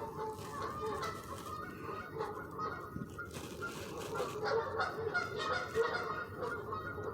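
Geese honking, a steady run of many short, overlapping calls, as two pairs square off in a territorial squabble.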